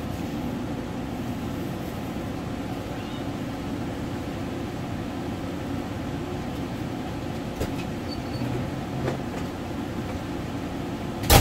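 A steady low mechanical hum, with one sharp knock near the end.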